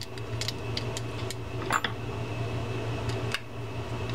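Small metallic clicks and ticks of a screwdriver driving the last bridge plate screw into the metal side plate of a Daiwa Sealine 47H fishing reel, with one sharper clink about halfway through, over a steady low hum.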